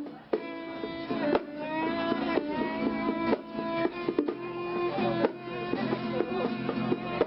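Music: a bowed violin playing sustained notes over a plucked guitar, the notes changing every second or so.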